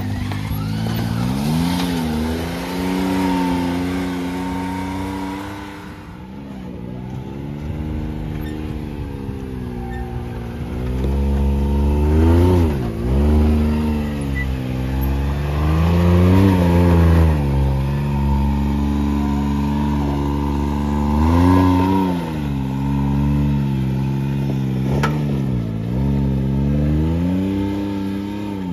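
Can-Am Maverick X3 Max X RS Turbo RR side-by-side's turbocharged three-cylinder engine revving up and down under load as it climbs steep rock. The pitch drops and rises again every few seconds with throttle changes, loudest in the middle.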